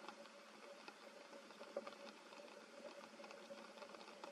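Faint light rain pattering and dripping on forest leaves: many small irregular drops, one a little louder about two seconds in, over a faint steady hum.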